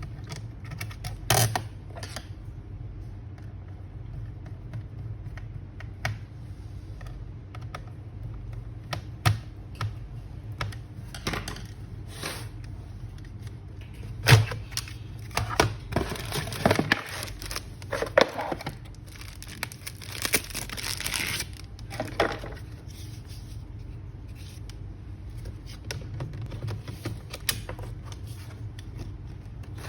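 Scattered clicks and taps of a laptop being handled, with a busier stretch of scraping and rustling about halfway through, over a steady low hum.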